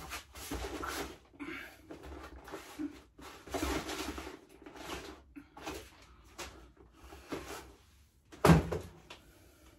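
Handling noises of parts being picked up and moved about: irregular rustles and clunks, with a sharper knock about eight and a half seconds in.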